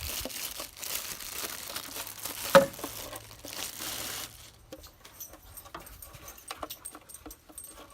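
Plastic wrapping being ripped and crumpled by hand, with one sharp crack about two and a half seconds in. After about four seconds it dies down to a few light ticks and clicks of handling.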